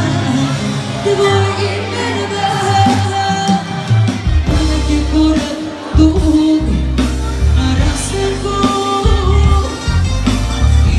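Live band music played loud through a club PA, with a woman singing into a microphone. A heavy bass beat comes in about four seconds in.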